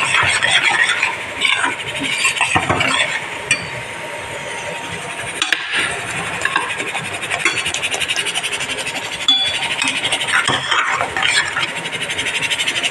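A metal spoon stirs and scrapes in stainless steel pans of tomato puree and chopped okra, clinking now and then against the pan. Under it runs a steady sizzle of frying.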